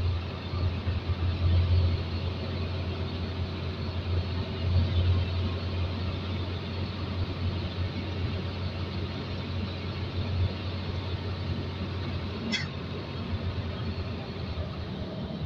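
Diesel truck engine and road noise heard inside the cab of a Hino truck on the move: a steady low rumble that swells a little now and then.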